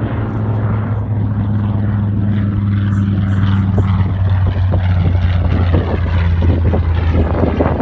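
Grumman TBM Avenger's Wright R-2600 radial engine and propeller running as the plane flies past overhead: a steady low drone that grows louder and drops in pitch in the second half as it passes.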